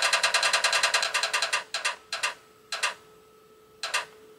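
Wheel-of-fortune app on a tablet ticking as its spinning wheel passes each peg: rapid, even ticks about ten a second that slow to a few spaced clicks and stop as the wheel comes to rest. A faint steady hum runs beneath.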